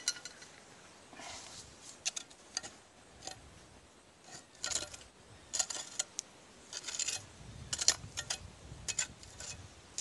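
Digging through a bottle dump by hand: a tool scraping and raking through soil and debris, with irregular clinks of broken glass, busiest in the second half.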